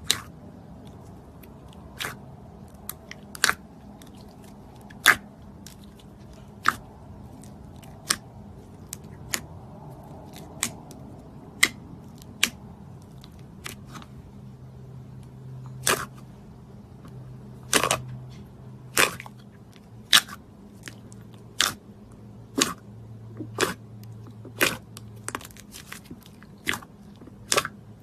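Slime being pressed and squeezed by hand, giving sharp clicks and crackling pops at irregular intervals, coming more often in the second half.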